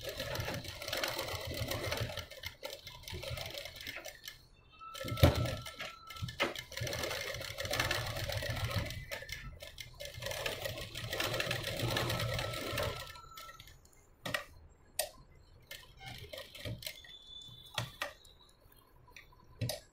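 Sewing machine stitching through layers of blouse fabric in two long runs with a brief stop between them, and a sharp knock as the second run starts. After about 14 seconds the machine falls still, leaving only a few scattered clicks.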